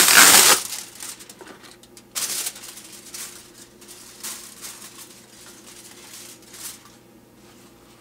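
A sheet of aluminium foil crinkling loudly as it is handled in the first half-second, followed by fainter, scattered rustling and crinkling.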